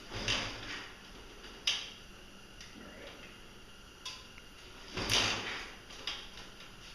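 Kick-starter of a BadBoy CX50 50cc scooter kicked twice, each kick a short mechanical churn of about half a second, with sharp clicks of the lever and stand between. The engine turns over but doesn't fire: it is cold and isn't spinning fast enough to start.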